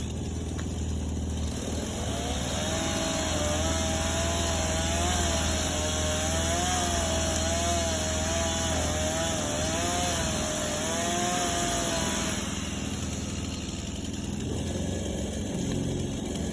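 Chainsaw cutting through a tree trunk for about ten seconds. Its pitch wavers up and down as the cut proceeds, and it cuts off near the end, over a steady low engine idle.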